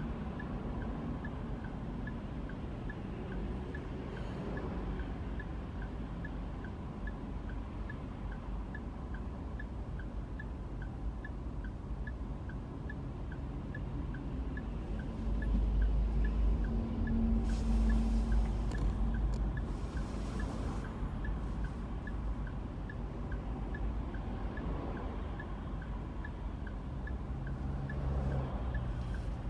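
Car stopped in traffic: a steady low engine and road hum with a light, regular ticking about twice a second, and the rumble swelling louder around the middle.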